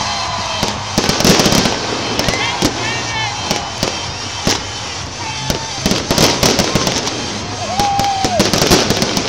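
Fireworks display: aerial shells and ground mines going off in a quick string of sharp bangs and crackling, with a few short whistling tones mixed in.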